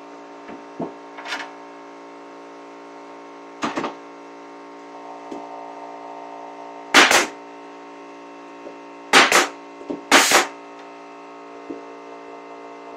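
Pneumatic nail gun firing into wood: a few lighter knocks in the first four seconds, then three loud sharp shots in the second half, two of them doubled, over a steady background hum.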